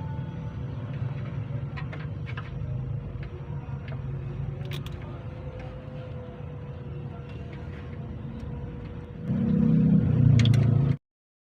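Steady low rumble with a few sharp clicks, growing louder for the last second and a half before the sound cuts off abruptly.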